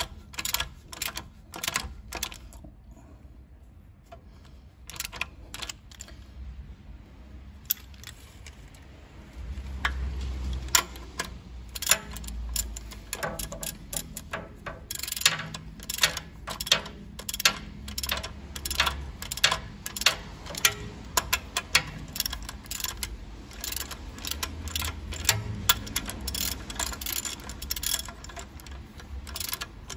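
Socket wrench clicking in quick, irregular runs as 17 mm nuts on the knuckle-arm studs are tightened, with a quieter stretch a few seconds in.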